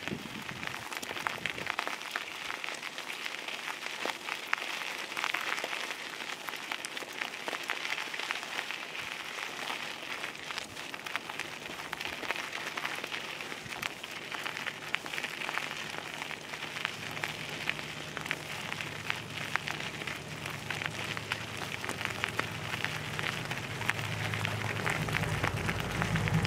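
A dense, even crackling hiss, with the low engine hum of an approaching canal motor barge growing louder over the last several seconds as the boat draws alongside.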